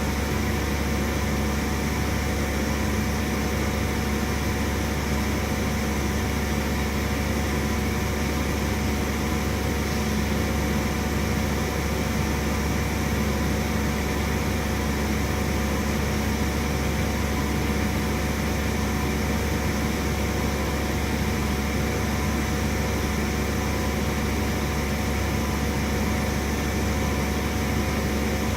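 CNC milling machine running steadily: an even mechanical hum with several steady tones over a hiss, with no pauses or changes.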